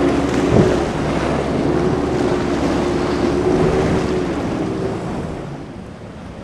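A speedboat's engine running at speed through rough waves, its note wavering, over wind on the microphone and hissing spray, with a sharp thump about half a second in; the engine fades near the end.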